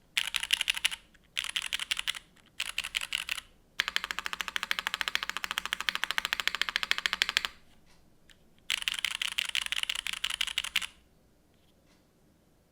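Typing on a Keycult No.2 TKL mechanical keyboard with Cherry MX Nixie switches. Short bursts of keystrokes give way to a long, fast, even run of key presses from about four to seven seconds in. One more burst follows, and the typing stops near the end.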